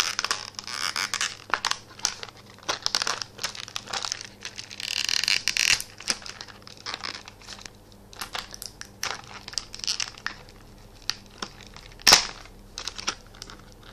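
Clear plastic toy packaging crinkling and crackling as it is handled, in many short irregular clicks. There is a denser rustle about five seconds in and one sharp click about twelve seconds in.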